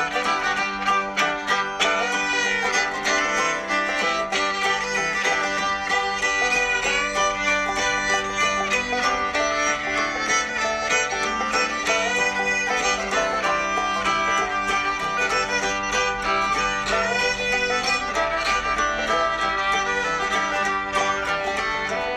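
Background music: an upbeat string tune with fiddle and plucked banjo-like notes.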